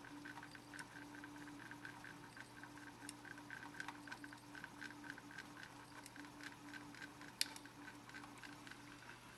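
MendelMax Pro 3D printer's stepper motors driving the print head through short, detailed moves: a faint hum that breaks into short stretches with brief gaps, over a rapid run of light ticks. One sharper click sounds about seven seconds in.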